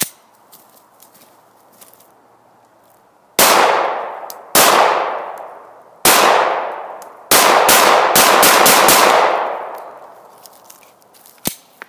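9mm Glock 19 Gen 3 pistol firing: four shots a second or so apart, then a rapid string of about six shots, each shot trailing off in a long echo.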